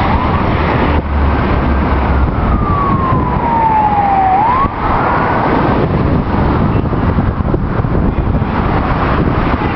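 Steady road-traffic noise with an emergency-vehicle siren wailing through it: a slow sweep in pitch that rises, falls over about two seconds and rises again, fading out a little past halfway.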